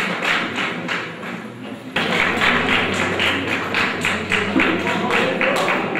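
Audience clapping in a hall, a dense run of claps that thins briefly and then picks up sharply about two seconds in.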